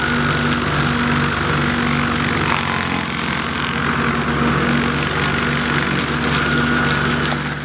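Cyclone 48-inch hydraulic rotary brush mower running together with the diesel engine of the machine carrying it: a steady drone with a faint higher whine now and then.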